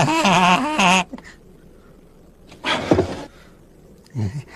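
Wordless vocalising in a person's voice, as the wolf character: a wavering, trembling call about a second long, then a short rough grunt about three seconds in and another brief one near the end.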